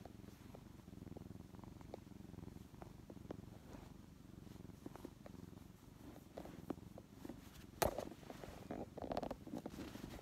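Young brown tabby cat purring close up, a steady low rumble, with faint scattered ticks and a single sharp knock about eight seconds in.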